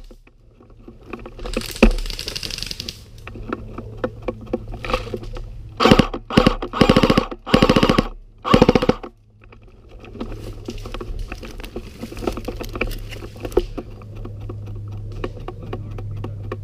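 Airsoft guns firing full-auto bursts: four quick bursts of rapid clicking about six seconds in, each under a second long, with scattered quieter shots around them.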